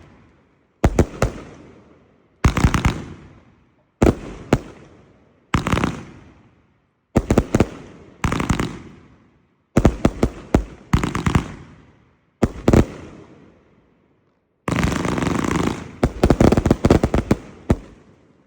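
Hallmark Fireworks' Tigers Revenge firework going off: a volley of sharp cracks about every second and a half, each fading away, then a longer, denser volley near the end that stops abruptly.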